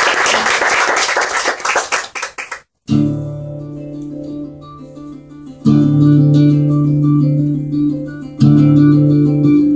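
A small audience applauding, cut off abruptly about three seconds in. Then an acoustic guitar starts: chords strummed and left ringing, a new one struck about every three seconds.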